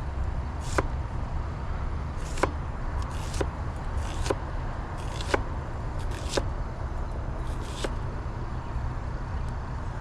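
Kitchen knife cutting an onion on a cutting board: sharp single knocks of the blade against the board, roughly once a second, over a steady low rumble.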